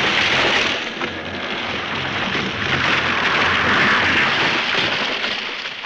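Loud rushing wind, a film storm effect, swelling in at the start and dying away near the end, with a low rumble underneath.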